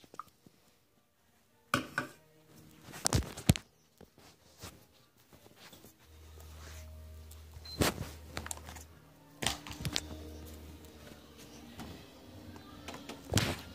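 Scattered thumps and knocks of footsteps on stairs and of a phone being handled, picked up close on the phone's microphone. A low hum comes and goes in the second half, under faint music.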